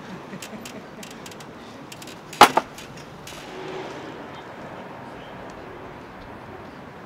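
Two sharp knocks in quick succession about two and a half seconds in, after a few faint clicks, over a low steady background.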